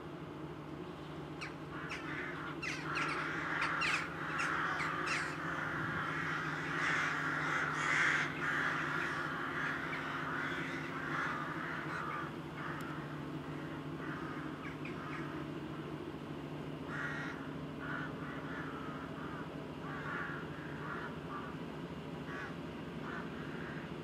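SM42 diesel shunting locomotive's a8C22 engine running with a steady low hum, while crows caw repeatedly over it, thickest in the first half and in spaced calls near the end.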